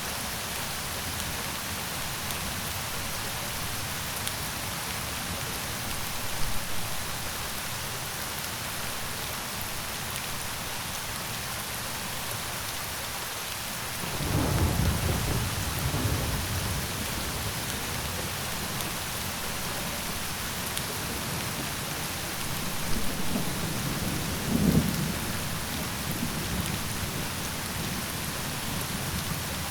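Steady heavy rain falling, with low rolls of thunder rumbling in about halfway through and again near the end.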